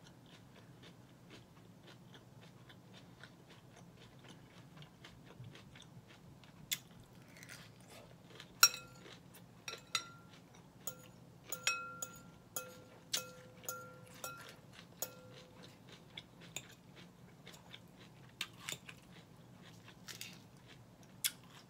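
Close-up chewing of crunchy romaine Caesar salad, with soft wet mouth clicks. From about eight seconds in, a metal fork clinks against the glass salad bowl about eight times, each clink ringing briefly, with a few more clinks near the end.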